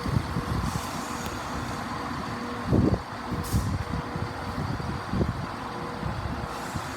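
Class 171 Turbostar diesel multiple unit running slowly into the platform: a low rumble with a steady hum and a few uneven thuds, the strongest about three seconds in.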